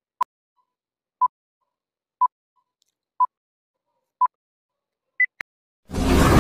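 Film-leader countdown beeps: five short, identical beeps one second apart, then a single higher-pitched beep and a sharp click. Near the end a loud rushing noise starts suddenly.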